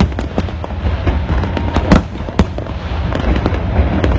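Fireworks display: a rapid run of sharp bangs and crackles from aerial shells bursting, the loudest a couple of seconds in, over a constant low booming rumble.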